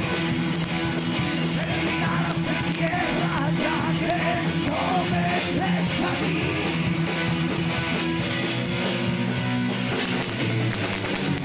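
A rock band's home-recorded demo song: full band playing steadily, with a singing voice over the instruments.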